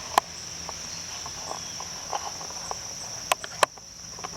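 A steady, high-pitched chorus of insects droning in the woods, broken by three sharp clicks, one near the start and two close together near the end.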